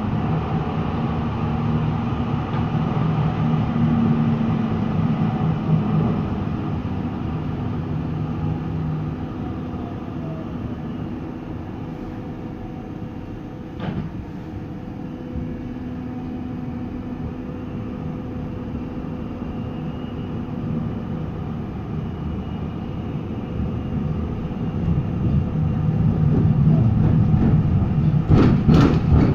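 Interior running noise of a TW6000 Stadtbahn light-rail car in motion: a steady hum over rolling wheel noise on the rails. There is a single sharp click about halfway through, and near the end it gets louder, with a quick run of wheel clatter over the track.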